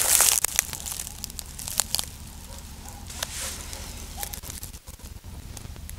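Close rustling and crinkling with scattered sharp clicks and crackles, loudest in the first half-second, with another rustle about three seconds in.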